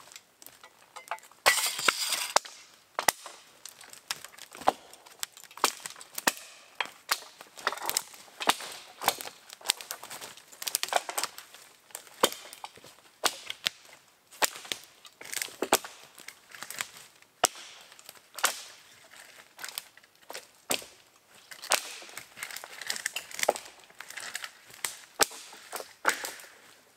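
Footsteps crunching through dry leaf litter and fallen branches, with twigs snapping underfoot in a quick, irregular series of sharp cracks. There is a louder burst of crackling brush about two seconds in.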